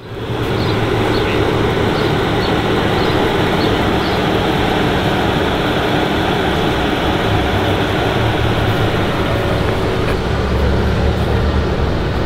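A vehicle engine running steadily, a low hum under an even rumble that holds level without rising or falling.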